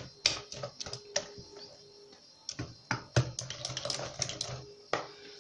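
Wire whisk clicking and scraping against the side of a mixing bowl as it stirs cornmeal batter, in quick, irregular ticks.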